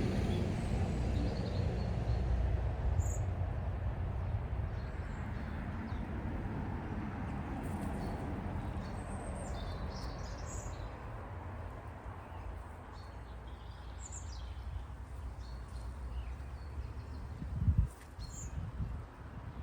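Wild birds chirping in short, scattered calls over a steady low rumble, with a brief low thump near the end.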